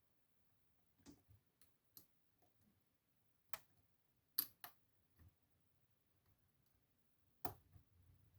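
Faint, irregular clicks of a lock pick working the pins of a DOM Plura lock cylinder under tension, about nine in all, the sharpest about three and a half, four and a half and seven and a half seconds in: pins being lifted and setting at the shear line.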